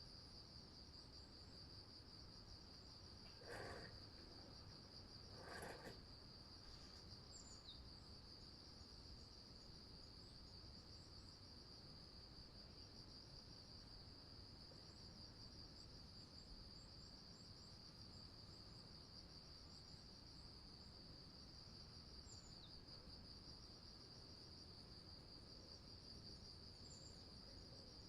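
Faint, steady trilling of crickets, unbroken throughout, with two brief louder sounds a few seconds in and a few tiny high chirps from birds scattered later.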